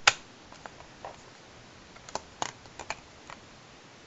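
Plastic Blu-ray case being handled: a sharp loud click just after the start, then a scatter of lighter clicks and taps.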